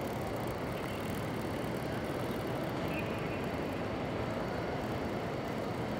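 Steady background noise of a large train-station concourse: an even low rumble with no single event standing out.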